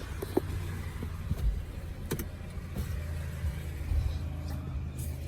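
2009 Honda CR-V engine idling steadily with a low hum, running on a bad alternator with a battery so drained that the engine nearly stalls. A couple of light clicks sound early on and about two seconds in.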